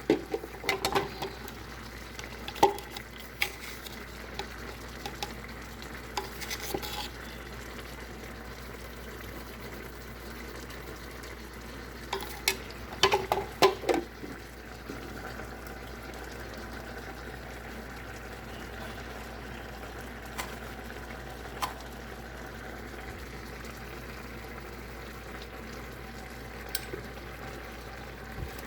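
A spoon stirring rice porridge in a pot, knocking and scraping against the pot in short clusters near the start and again about twelve to fourteen seconds in, with a few lone clicks later. A steady soft hiss from the simmering pot runs underneath.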